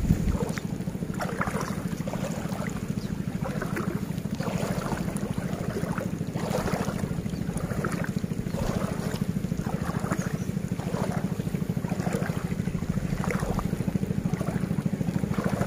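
Water sloshing and splashing in soft, irregular surges, about once a second, as someone wades through shallow lake water, over a steady low rumble.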